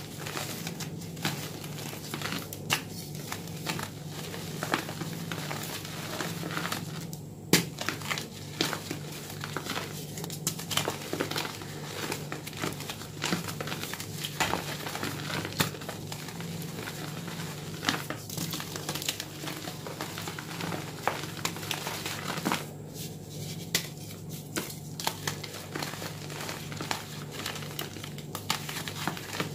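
Powdery gym chalk blocks crushed and crumbled in bare hands: dense, continuous crackling crunches, with a few sharper snaps as chunks break apart.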